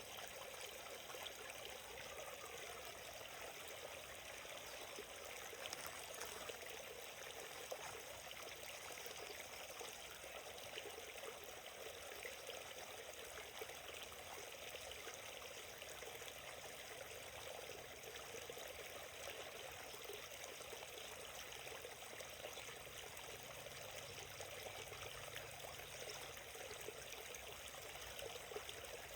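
Small forest stream flowing steadily over stones, a soft continuous burble and trickle of water.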